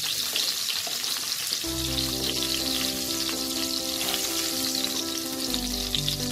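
Hot mustard oil sizzling and crackling in a nonstick wok, with a spatula stirring and lifting out fried cauliflower florets.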